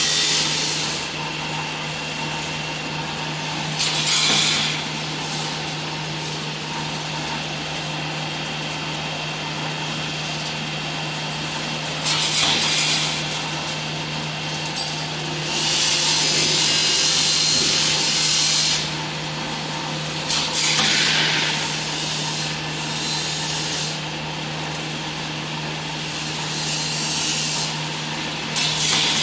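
Automatic CNC wire straightening and cutting machine running, with a steady motor hum and mechanical whir, and several louder scraping hisses, one lasting about three seconds, as steel wire runs through it.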